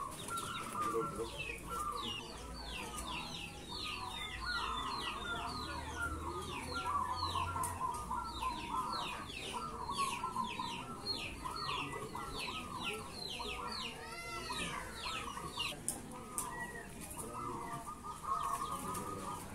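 Chickens clucking over a chorus of caged zebra doves (perkutut) cooing, with quick high falling chirps repeating several times a second. One short rising-and-falling call about fourteen seconds in.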